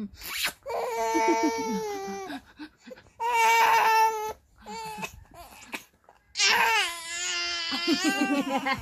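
A three-month-old baby crying in three wavering wails: one of about two seconds, a short one about three seconds in, and a longer one from past six seconds to the end.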